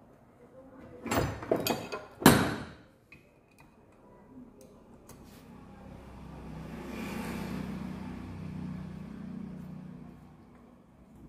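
Metal tools and engine parts clanking and scraping sharply during engine reassembly, loudest about two seconds in, followed by a few light taps. Later a low hum swells and fades over several seconds.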